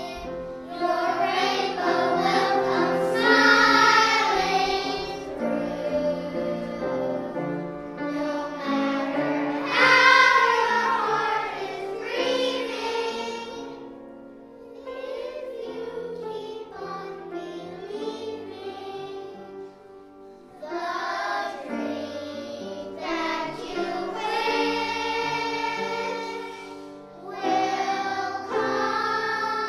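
Children's choir singing a song in sustained phrases through face masks, softer through the middle and swelling again near the end.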